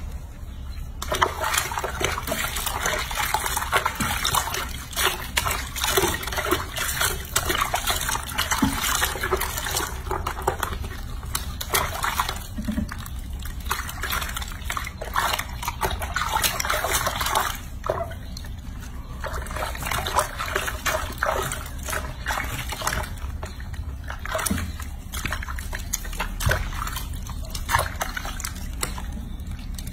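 Hands scrubbing a baby monkey in a sink of soapy water: irregular sloshing and splashing, broken by a few short pauses.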